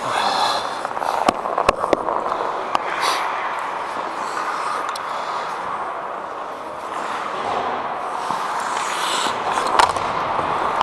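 Ice hockey play heard on the ice: skate blades scraping and carving on the ice, with several sharp clacks of sticks and puck.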